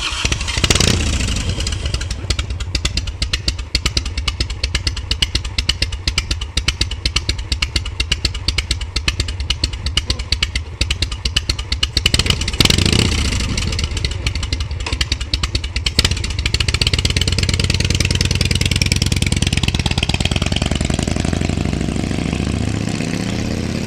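Harley-Davidson Softail's 1340 cc (80 ci) Evolution V-twin through unbaffled short exhaust pipes, idling with its uneven potato-potato beat, blipped twice, about a second in and near the middle. In the last third it pulls away under throttle, the pitch rising and falling through gear changes, and eases off near the end.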